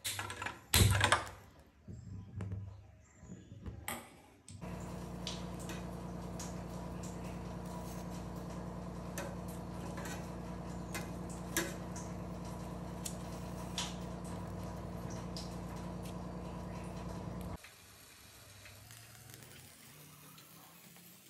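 A few sharp clattering knocks in the first few seconds, then a steady low mechanical hum that cuts off suddenly about three-quarters of the way through.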